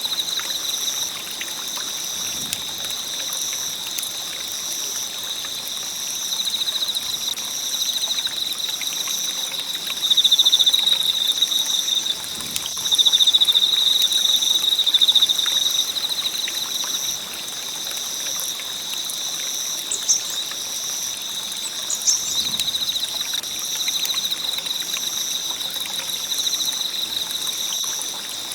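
Wood campfire crackling with light scattered pops. Under it, a steady high-pitched insect chorus with a second, pulsing insect call; the chorus swells for a few seconds near the middle.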